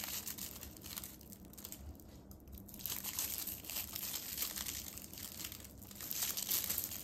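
Polyethylene Suzuran raffia tape crinkling and crackling as it is worked into single crochet stitches with a crochet hook. It dips quieter briefly about two seconds in.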